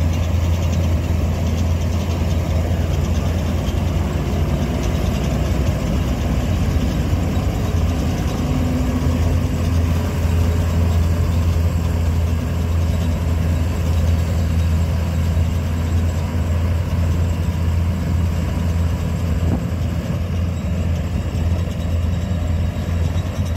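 Swaraj 8200 combine harvester running steadily as it harvests, its diesel engine and threshing machinery giving a loud, even low hum. It grows a little quieter near the end as the machine draws away.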